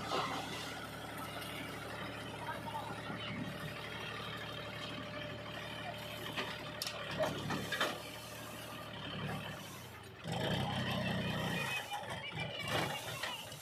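Diesel tractor engine running steadily while its hydraulic tipping trolley raises the bed and the soil load slides and pours off it, with loose knocks and rattles. About ten seconds in, the engine note becomes louder and heavier.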